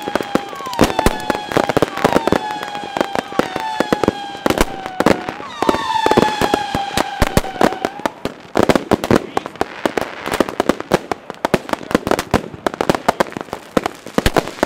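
Fireworks batteries firing in a dense barrage: rapid bangs and crackling breaks throughout. Over them, a long whistling firework tone runs to about five seconds in, then a second whistle runs until about eight seconds in. After that, only the cracks and bangs continue.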